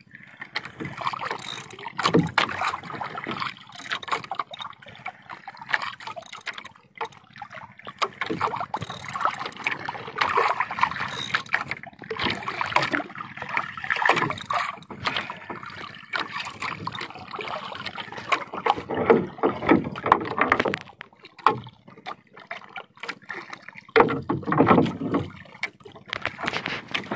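Water slapping and sloshing against a small wooden outrigger boat (bangka) in irregular bursts.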